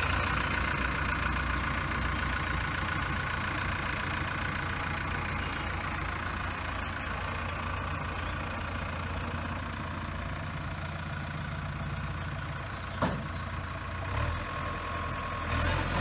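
JCB 3DX backhoe loader's 4.8-litre four-cylinder diesel engine running steadily while its hydraulics lift the machine on its stabilizer legs and front loader bucket. A sharp click comes about thirteen seconds in, and a couple of soft knocks come near the end.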